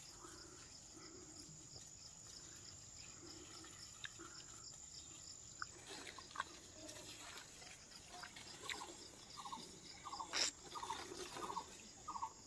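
Water pouring from a plastic watering can onto soil and leaves, a faint trickling and dripping.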